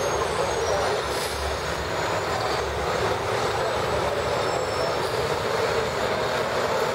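Steady city street traffic noise: a continuous hum of vehicle engines and tyres with no distinct event.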